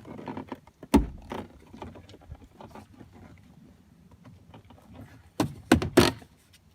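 Metal knocks and clunks of a pickup truck door being lifted off its hinges: one sharp knock about a second in, then a quick run of about four knocks near the end.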